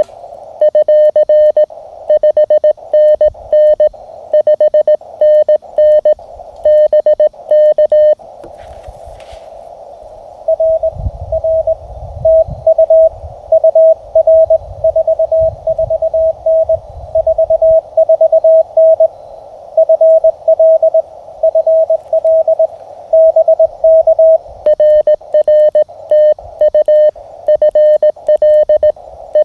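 Morse code (CW) from a Mountain Topper MTR QRP transceiver: a single mid-pitched tone keyed in dots and dashes over receiver hiss. About 8 seconds in the code stops for a couple of seconds of hiss only, then resumes and runs on in a back-and-forth exchange. Some low thumps sound under the code in the middle.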